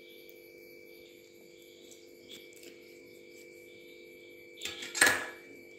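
Wooden spoon stirring chopped onion and mashed potato in a glass bowl: a few faint clicks, then a short loud scrape against the bowl about five seconds in, over a faint steady hum and high whine.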